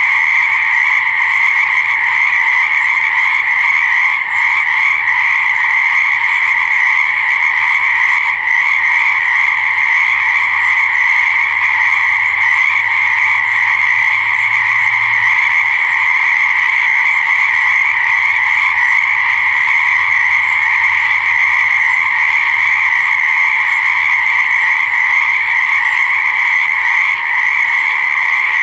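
A dense chorus of many frogs calling at once, forming a steady, unbroken din in a high pitch with a lower second layer beneath it.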